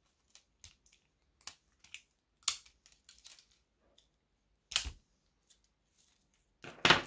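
Scattered plastic clicks and taps from acrylic paint markers being handled, with a few louder sharp knocks about two and a half, five and seven seconds in.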